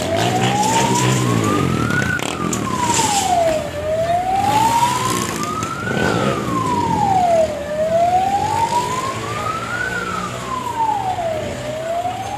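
A vehicle siren sounding a slow wail: the pitch climbs for about two seconds and falls for a little over one and a half, repeating about three times.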